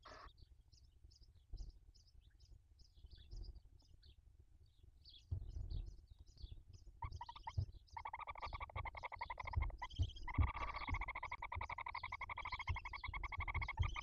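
Barn owls in the nest: from about eight seconds in, a fast-pulsed, buzzy chittering call holds on a steady pitch to the end. Before it there are faint, quick, high chirps, about three a second, and a patch of rustling with soft knocks as the brooding adult shifts over the chicks.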